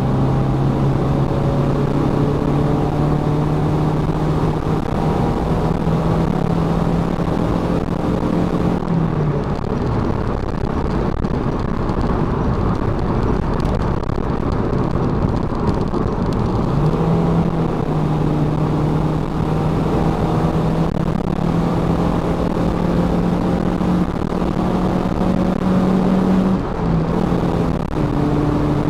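1993 Honda Civic CX hatchback's four-cylinder engine running under way over steady road and tyre noise, its note slowly rising as the car gathers speed. About nine seconds in the engine note drops away. It comes back some eight seconds later and climbs again, and near the end it steps up higher.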